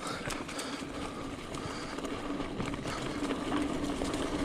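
Mountain bike rolling down a dirt singletrack trail: steady tyre rumble and rushing air, with many small clicks and rattles from the bike over roots and rocks and a steady low buzz that grows a little stronger near the end.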